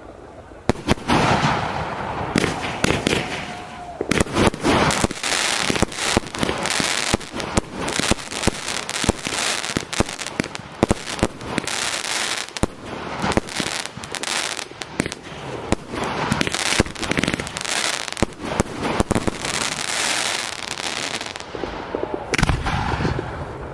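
Fireworks display: after a quiet first moment, a sudden bang, then a dense, rapid run of shell bursts and crackling that thins out near the end.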